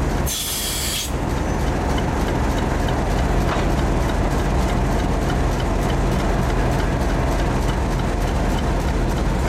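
Diesel locomotive engine running steadily as the train moves slowly along the sidings, with a short sharp hiss of air about half a second in.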